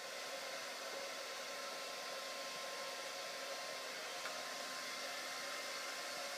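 Steady even hiss with a faint hum, no distinct events: background room noise.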